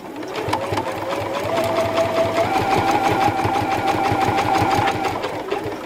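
Domestic sewing machine stitching a straight seam along a zipper through stretch denim. Its motor whine rises as it speeds up over the first couple of seconds, then runs steady with rapid, even needle strokes, and stops about five seconds in.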